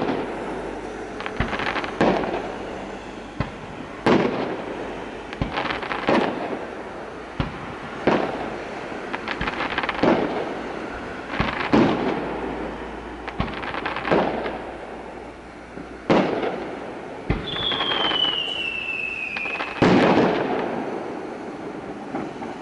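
Aerial firework shells bursting in a steady barrage, a boom every second or two, each trailing off slowly. Just past the middle, a high whistle falls in pitch for about two seconds.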